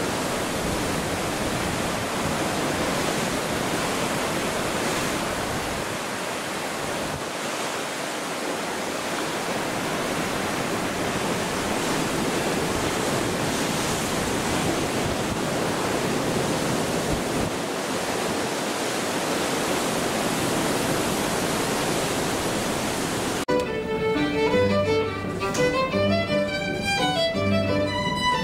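Rough sea and wake water rushing and churning along a ship's hull in strong wind, a steady, even rush. About 23 seconds in it cuts off abruptly to live string music led by a violin, with low bass notes under the melody.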